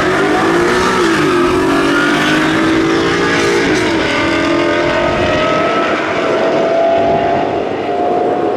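Two Ford Mustangs accelerating hard down a drag strip, engines revving up with upshifts about a second in and again around four seconds, then a long steady climb in pitch as they pull down the track.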